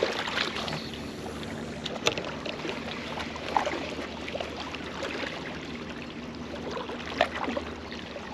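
Steady outdoor water and wind noise, with a few light clicks and knocks about 2, 3.5 and 7 seconds in.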